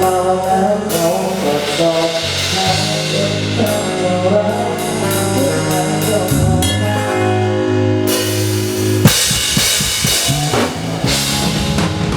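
A live band playing an instrumental passage with drum kit, bass and keyboard or guitar lines, picked up by a camera microphone; the bass and drum pattern changes about halfway through and again about three-quarters of the way in.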